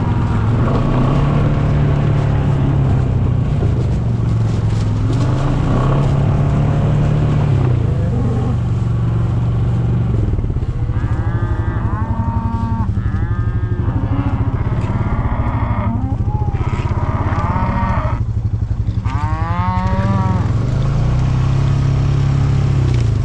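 Cattle mooing several times, the calls bunched in the second half, over the steady hum of a Gator utility vehicle's engine running.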